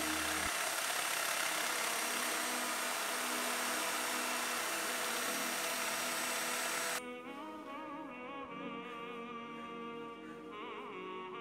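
Electric hand mixer running at speed, its beaters whirring through flour and cake batter, until it switches off abruptly about seven seconds in. Background music carries on alone after that.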